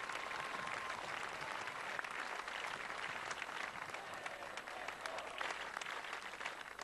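Large crowd applauding steadily: a dense, even patter of many hands clapping.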